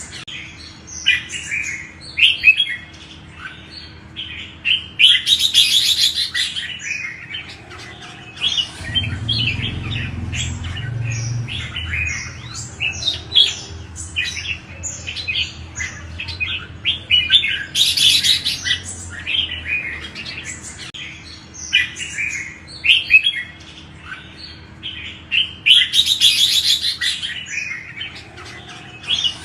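Red-whiskered bulbul song: quick, chirpy whistled phrases following one another with hardly a pause, broken three times by a harsher, hissing burst.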